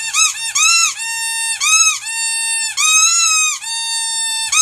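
Squeaky dog toy squeaking repeatedly. The squeaks are high-pitched: a quick run of short squeaks, then longer drawn-out squeaks from about a second in, with short ones returning near the end.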